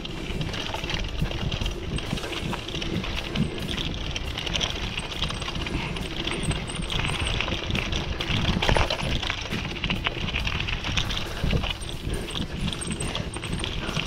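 Bicycle rolling along a gravel forest track: tyres crunching over grit and the bike clattering, with wind rumbling on the camera's microphone.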